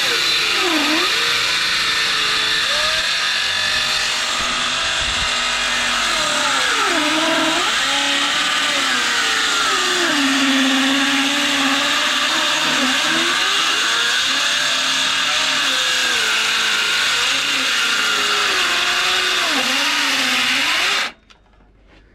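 Electric hand-held saw ripping lengthwise through a thick blackwood acacia slab. The motor's whine sags in pitch again and again as the underpowered saw bogs down in the cut, then recovers, and the saw stops suddenly near the end.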